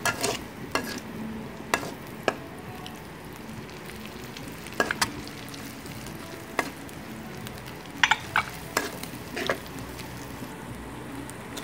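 Dried prawns, garlic and onion frying in oil in a wok with a steady sizzle, while a metal spatula stirs and scrapes the paste, clicking sharply against the pan a dozen or so times at uneven intervals.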